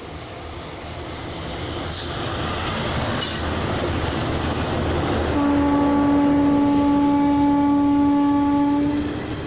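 A locomotive-hauled Indian express train with Garib Rath coaches passing close at speed; the rumble of its wheels on the rails builds as it nears. About five seconds in, the locomotive's horn sounds one long steady note for about three and a half seconds.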